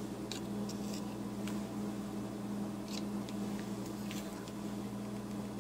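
A steady low hum, with faint scattered scratches and light taps as gesso is worked onto a paper card by hand.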